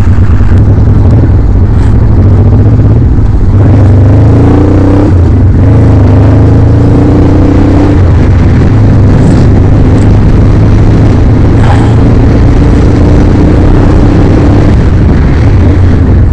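Honda Transalp twin-cylinder motorcycle engine running under way, with a steady low rumble. It pulls up in rising revs about four and six seconds in and again from about ten seconds, each pull breaking off as the gears change.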